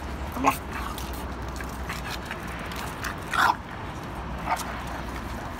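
French bulldogs play-wrestling, making a few short dog vocal sounds, the loudest about three and a half seconds in.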